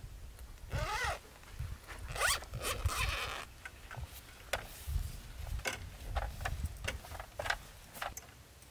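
Zipper on the cover of a roof-rack-mounted side awning being pulled open in a couple of long strokes, then scattered clicks and knocks of the awning frame as it is unrolled and set on its legs.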